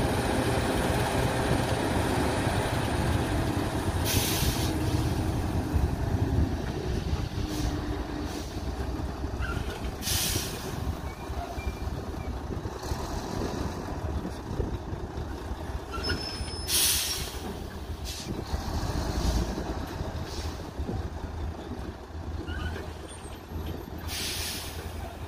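Heavy diesel tipper trucks running with a steady low engine rumble that slowly eases, broken by four short, sharp hisses of released air from the trucks' air brakes, spaced several seconds apart.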